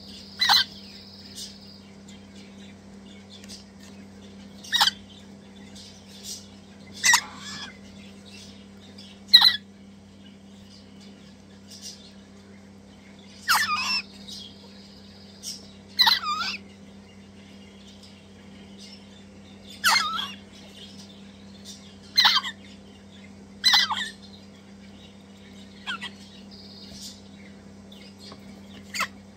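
Crimson Rosella chicks giving short, harsh begging calls every two to three seconds as they are hand-fed from a spoon, about a dozen in all, over a steady low hum.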